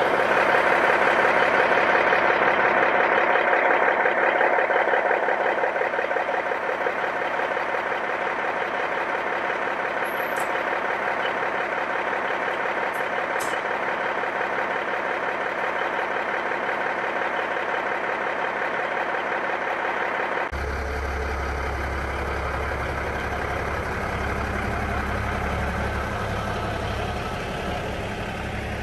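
1979 Peterbilt 359's Cummins Big Cam 4 straight-six diesel idling steadily. About twenty seconds in the sound changes suddenly to a deeper engine note.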